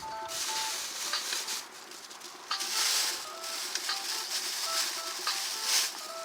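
Campfire crackling, with irregular sharp pops and surges of hissing, the loudest about halfway through; soft jazz notes sound over it.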